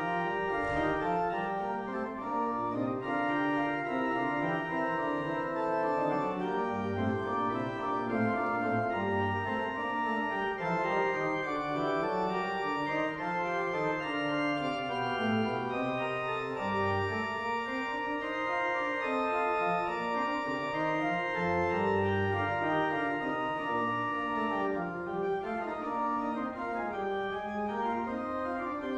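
Organ playing the closing postlude: sustained chords over a moving bass line, at a steady level.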